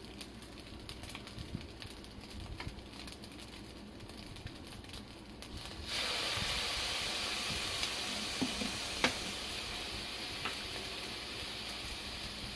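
Fried rice sizzling quietly in a nonstick frying pan, then, about halfway through, cooking sake splashed in from a measuring spoon makes the sizzle jump suddenly louder and hissier before it slowly eases off. A few sharp clicks sound over the sizzle.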